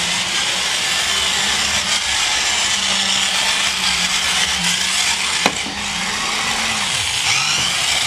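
Small electric motors of remote-control toy bumper cars whirring steadily as they drive over a hardwood floor, the hum wavering and dipping near the end. There is a single sharp click about five and a half seconds in.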